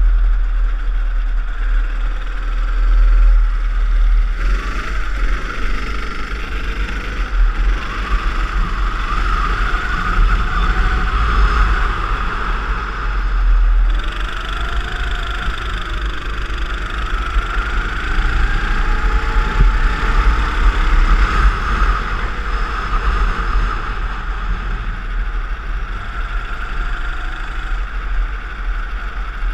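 Go-kart engine running hard around a lap, its pitch rising and falling repeatedly with the throttle through the corners. Heavy wind rumble on the microphone underneath.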